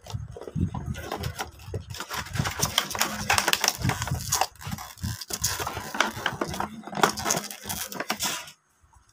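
Plastic packaging tray creaking, rustling and clicking as a folded quadcopter drone is worked out of it by hand, in a dense irregular run that stops abruptly near the end.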